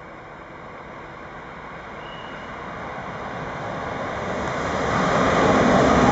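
Electric locomotive hauling a train of passenger coaches approaching, its running noise and rail rumble growing steadily louder and reaching full strength about five seconds in.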